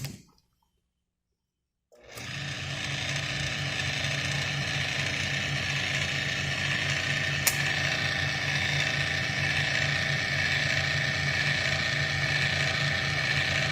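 Ilco 017 automatic key duplicator's motor starting about two seconds in and running steadily, spinning its cutter wheel, with a single sharp click partway through.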